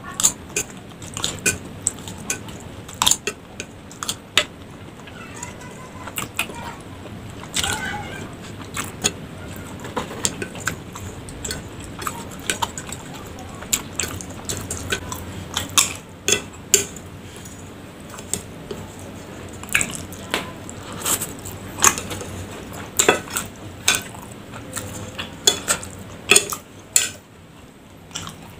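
A metal spoon and fork clink and scrape irregularly against an amber glass plate as the last noodles are scooped up, with wet chewing sounds between mouthfuls.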